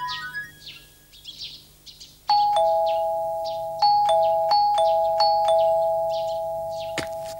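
A two-tone ding-dong doorbell rung four times in quick succession, its tones ringing on, with small birds chirping.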